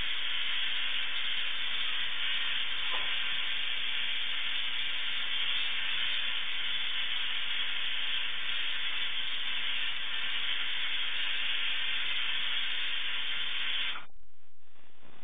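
Tesla coil built from a 1920s diathermy machine running, its spark gap and arcs making a steady high hiss; the sound cuts off abruptly about fourteen seconds in as the coil is switched off.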